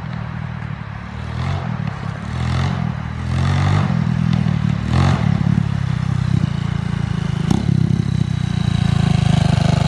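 200cc pitbike engine, fitted with a new cylinder, running and revving up and down as the bike rides over rough grass, getting louder towards the end as it comes closer. Two sharp knocks are heard, about halfway through and again about two and a half seconds later.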